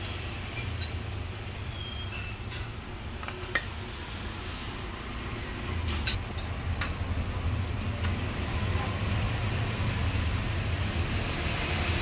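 Steady low background rumble that grows a little louder in the second half, with a few sharp light clicks, the sharpest about three and a half seconds in.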